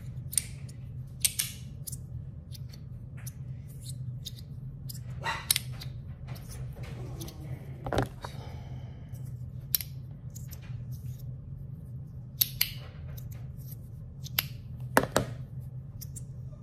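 Lowrey magnetic fidget slider worked by hand: irregular sharp metallic clicks as the metal slide snaps back and forth between its magnetic stops, over a steady low hum.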